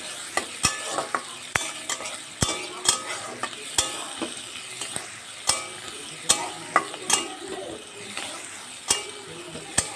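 Chopped onions sizzling in hot oil in a metal kadai, stirred with a wooden spatula that scrapes and knocks against the pan at irregular intervals, some knocks leaving a brief ring. The onions are being fried until reddish-brown.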